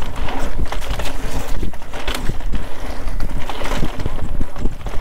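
Wind buffeting a GoPro's microphone at riding speed, over mountain-bike tyres rolling on a dirt trail, with frequent irregular knocks and rattles from the bike going over bumps.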